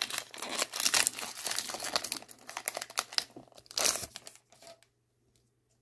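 Foil Pokémon booster pack wrapper crinkling and tearing as it is opened by hand. It stops about four seconds in.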